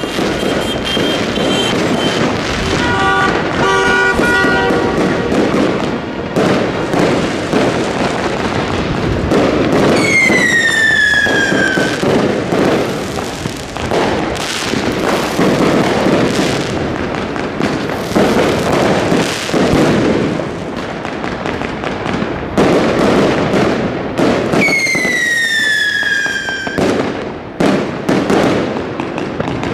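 New Year's Eve fireworks going off all around: a continuous clatter of firecrackers and bangs. Two long falling whistles from whistling fireworks stand out, one about a third of the way in and another near the end.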